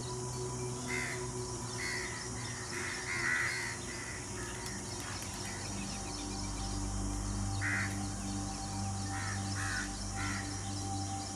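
A series of short, harsh animal calls: a quick cluster of five or six, a pause, then a few more near the end, over steady sustained background tones.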